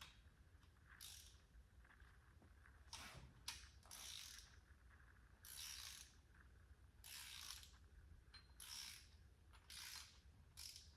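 Faint hand ratchet wrench clicking in about nine short bursts of strokes as cylinder head bolts are run down snug, the first pass before final torquing.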